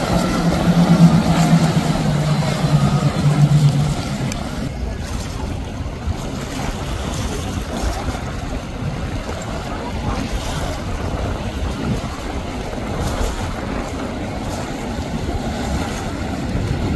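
Motorboat running fast past the jetty: a steady engine drone for about the first four seconds that then fades, leaving an even rush of water and wind.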